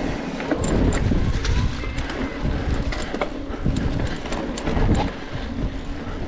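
Mountain bike rolling over a rough dirt trail: a low rumble of wind on the microphone, with frequent irregular clicks and rattles from the bike.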